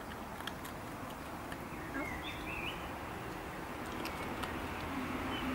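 Quiet outdoor background with a few faint ticks and a brief high, wavering chirp about two seconds in.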